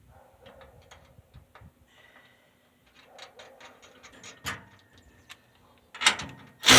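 Nuts being tightened onto wheelbarrow bolts with a ratchet wrench: a run of quick light clicks, then a few louder metal knocks near the end.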